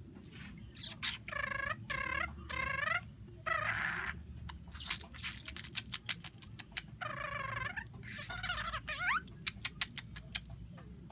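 Budgerigar chattering and warbling: a string of short pitched chirps and squawks, broken by fast runs of clicks about halfway through and again near the end.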